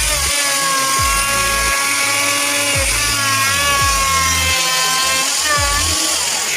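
Background music: a wavering melodic line over low bass notes that slide downward in pitch every second or two.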